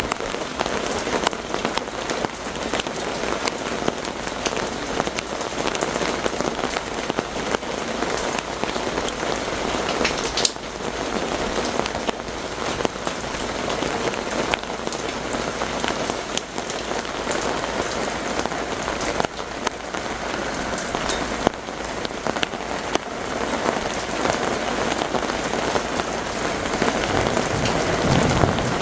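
Heavy rain falling steadily, with individual drops ticking sharply on nearby surfaces. A low rumble of thunder begins near the end.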